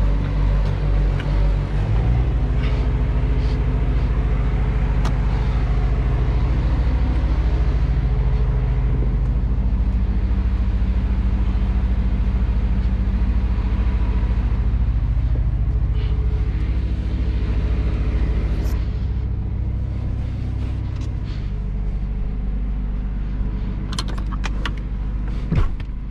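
Diesel engine idling steadily, a deep even hum. Near the end come a few light clicks and one thump.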